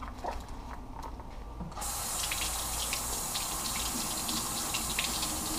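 Kitchen sink faucet turned on about two seconds in, then running steadily, the water splashing over hands held in the stream.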